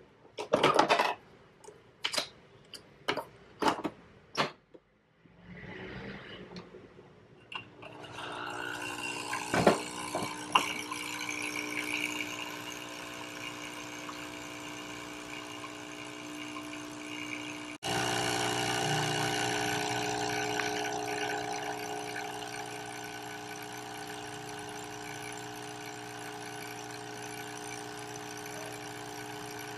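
Nespresso capsule machine: a handful of clicks as it is handled and its button pressed, then its pump buzzes steadily while brewing coffee into a mug. The buzz breaks off for an instant about two-thirds of the way through and comes back louder.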